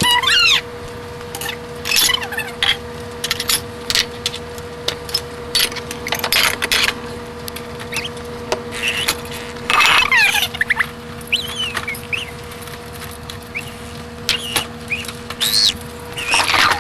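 Dishes and cutlery clinking and clattering as a dishwasher is unloaded, played back at four times normal speed. Many quick sharp knocks are mixed with short high squeaky chirps over a steady hum.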